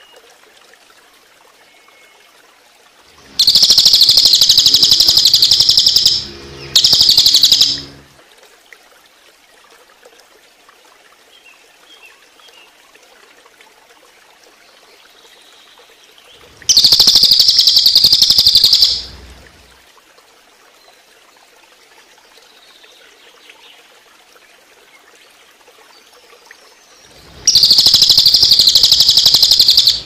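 Crested jay (cililin) giving its loud, fast rattling 'tembakan' call in four bursts of about one to three seconds: two close together early, one in the middle and one near the end. Running water trickles steadily underneath.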